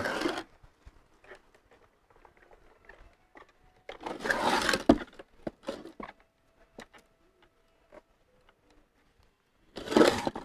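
A motor stator housing turned by hand on a wooden block, scraping briefly three times. Light clicks and rustles of enamelled copper winding wire being handled come in between.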